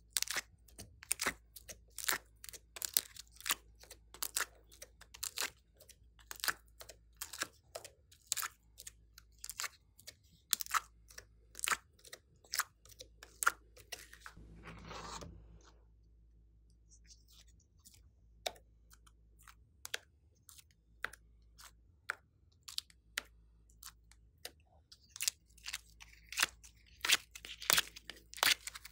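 Plastic makeup palettes crackling and clicking as the pieces are pressed and popped out of their wells: quick runs of sharp clicks, thinning out for a stretch after the middle, then a dense run again near the end. A short soft rustle comes about halfway.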